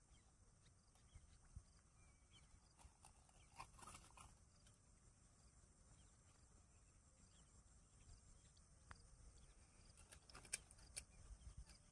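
Near silence: faint rustling and a few light clicks from a mesh fish net being handled, a short rustle about four seconds in and a few clicks near the end, over a faint steady high hiss.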